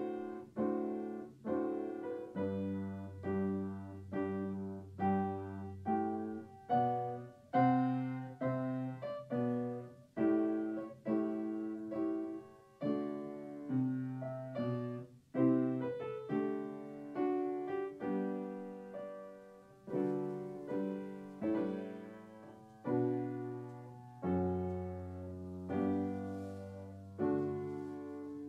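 Background piano music: a gentle piece of evenly paced notes, each struck and fading, over sustained low bass notes.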